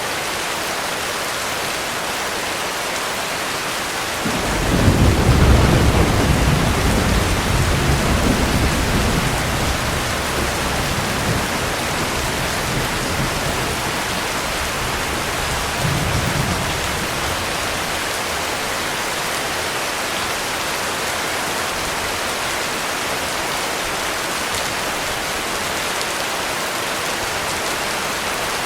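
Steady heavy rain hissing, with a low rolling rumble of thunder that breaks in about four seconds in, peaks and fades away over several seconds. A fainter rumble follows about halfway through.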